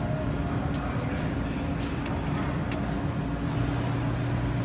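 Steady low electrical hum of arcade machines, with a few faint clicks about one, two and two and a half seconds in.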